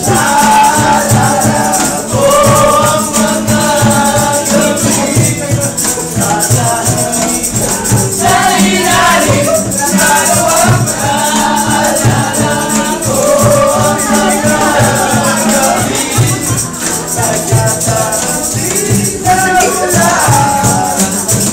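A group of men singing together, accompanied by two strummed acoustic guitars and a steady cajón beat.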